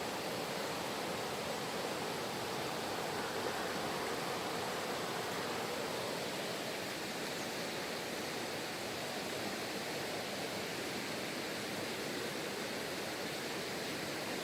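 Mountain stream water rushing steadily over rocks, an even continuous noise with a slight change in tone about six seconds in.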